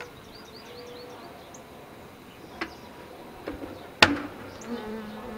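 Honeybees buzzing around an opened Langstroth hive, with a few sharp knocks, the loudest about four seconds in.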